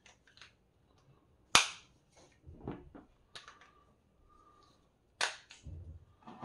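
AA batteries being pressed into a trail camera's plastic battery tray, giving a series of sharp clicks and snaps against the spring contacts. The loudest click comes about a second and a half in and another near the end, followed by a soft thump.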